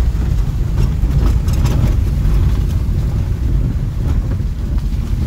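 Inside a car driving on a wet road in heavy rain: a steady low rumble of engine and tyres, with a few light ticks scattered through it.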